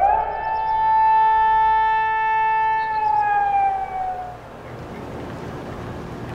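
A siren-like tone with many overtones rises, holds steady for about three seconds, then slides slowly down in pitch and fades out. A faint steady background hiss follows.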